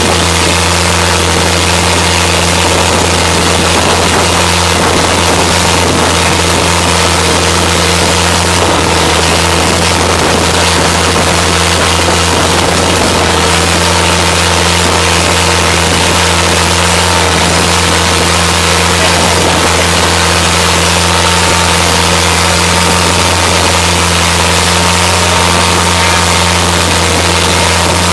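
Boat engine running steadily at speed, a loud constant drone, with the hiss of water spray and rushing air along the hull.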